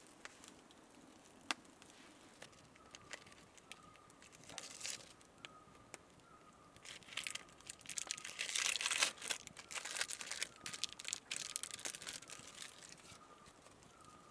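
Plastic wrapper crinkling and rustling as it is handled, in a run of bursts that is loudest about eight to nine seconds in. A faint high chirp repeats steadily underneath.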